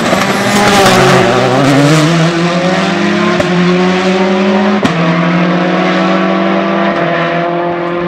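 Rally car engine at high revs: its pitch climbs over the first two to three seconds, then holds steady. Two short, sharp cracks cut through about three and a half and five seconds in.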